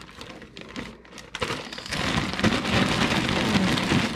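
A zip-lock plastic bag of crabapples and salt being shaken. A few crinkles at first, then from about a second and a half in a dense, loud rattling clatter of the small hard fruit tumbling inside the bag.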